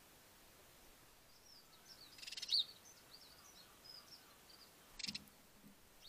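Small garden birds chirping faintly in the background, broken by a short, loud rustling burst near the middle. About five seconds in comes a brief flutter with a soft thump as a wood pigeon lands on the rim of the stone bird bath.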